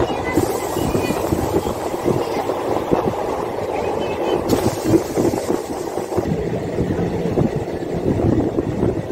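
DEMU passenger train running along the line, heard from an open window or doorway: a steady rumble and rattle of the coach and wheels on the track, with wind rushing past that eases after about six seconds.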